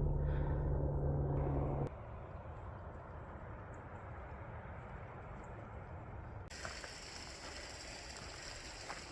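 Helicopter heard from the ground, a steady low drone from its rotor and engine that drops away abruptly about two seconds in. Then a faint outdoor hush, and from about two-thirds of the way through, the even hiss of a mountain stream running.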